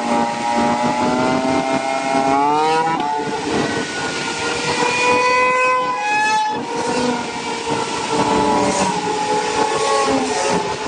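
Motorcycle engines running at highway speed with steady wind and road rush. The engine note rises twice, about two and a half seconds in and again near six seconds, as the bikes accelerate.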